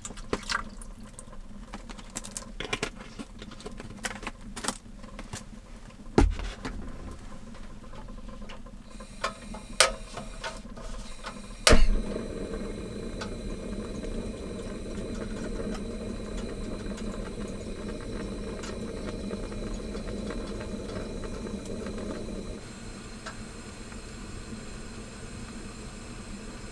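Water pours briefly from a plastic bottle into a metal mess tin, followed by scattered clicks and knocks as the tin is handled and set on a small gas burner. About twelve seconds in, there is a sharp click and the burner's flame starts a steady hiss, which gets quieter about ten seconds later.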